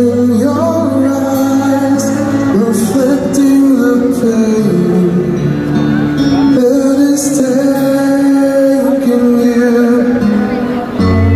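Live slow rock ballad: a male singer sings a held, gliding melody into a microphone over acoustic guitar, through an arena sound system. A low bass note sounds under it, drops out for several seconds in the middle and comes back near the end.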